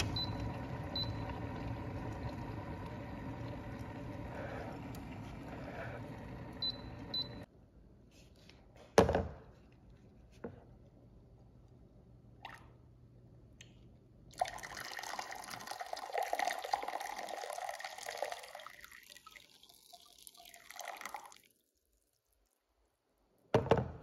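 Glass electric kettle at a rolling boil, cutting off abruptly. A loud knock follows, then a few faint clicks. Boiling water is then poured from the kettle into a glass measuring jug for about seven seconds, the sound rising as the jug fills, and it ends with a knock as the kettle is set down.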